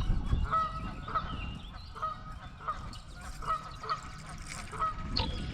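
Geese honking over and over, short calls coming about every half second.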